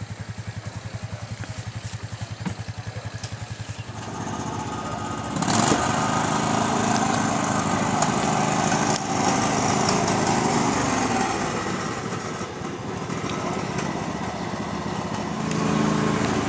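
Small engine of an off-road lawn mower idling with an even pulse, then running much louder from about five seconds in, easing off briefly and picking up again near the end.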